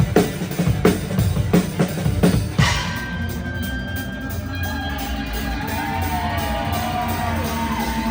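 A rock band playing live: a steady drum beat runs until about a third of the way in and then stops, leaving held notes with sliding, bending pitches over a sustained low tone.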